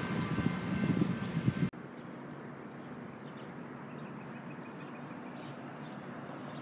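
Double-stack freight train cars rolling past on steel rails, clattering with a thin high squeal. This cuts off abruptly about two seconds in to a quiet steady outdoor hiss with faint, repeated insect chirps.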